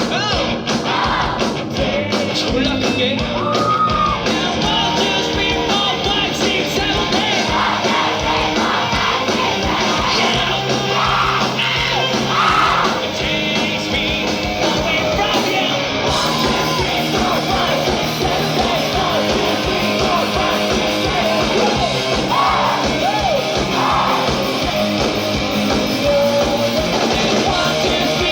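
A live rock band playing loudly, with a steady drum beat, bass, guitars and a lead vocalist singing.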